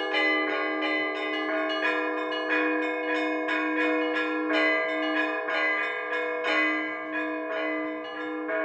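Orthodox church bells ringing a full peal (zvon): smaller bells struck in a quick, continuous pattern over a lower bell struck about twice a second.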